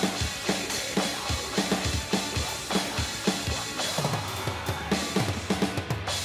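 Metal drumming on the Real Drum app's sampled kit: a fast, steady pattern of kick and snare hits, then a quicker run of lower drum hits in the last two seconds, with the metal band's song underneath.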